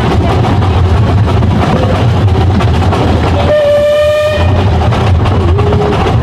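Narrow-gauge steam locomotive's whistle giving one blast of about a second, midway through, sounded for a trackside whistle board. Under it runs the steady rumble and wheel clatter of the carriages on the 15-inch-gauge track, heard from the train.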